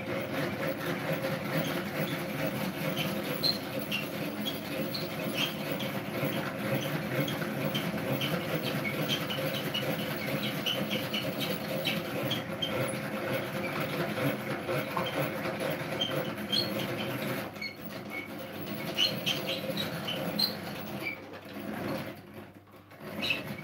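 Hand-cranked rotary egg beater whisking pancake batter in a plastic bowl: a steady whirring rattle of the gears and beaters, with small clicks. It eases off and turns uneven about three-quarters of the way through.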